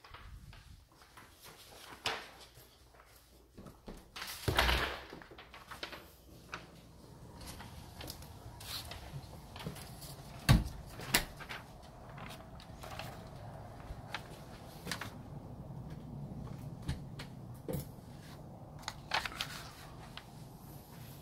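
A door being opened and shut: a handful of knocks and thuds, the loudest about ten seconds in. From partway through, a steady low background rumble is heard as well.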